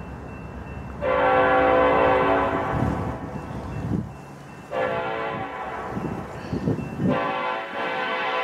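BNSF diesel locomotive's multi-chime air horn sounding three long blasts, the third still going at the end, over a low rumble.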